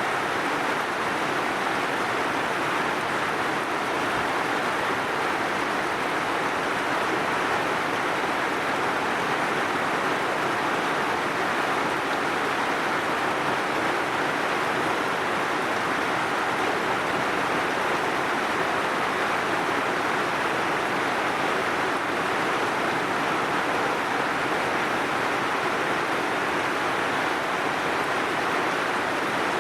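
Heavy rain falling steadily, an even hiss with no changes.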